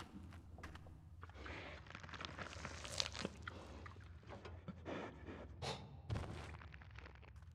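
Low steady rumble with scattered crunches and knocks over it, the loudest about three seconds in and just after six seconds.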